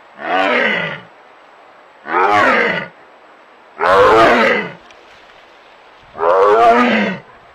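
Tiger roaring: four loud calls about two seconds apart, each lasting about a second and falling in pitch.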